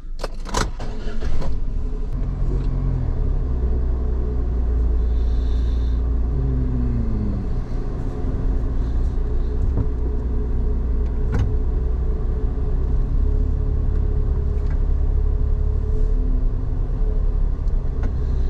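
A car driving slowly through a multi-storey car park, heard from inside the cabin: a steady low engine and road rumble, with a few light clicks.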